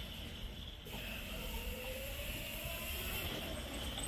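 Raptor 1000 W electric mini quad's motor running on a 48 V battery, a faint whine that rises in pitch about a second in as the quad picks up speed.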